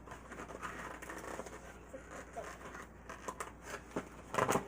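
Toy packaging being handled: scattered clicks and crinkling of plastic and cardboard, with a louder rustle or tear near the end.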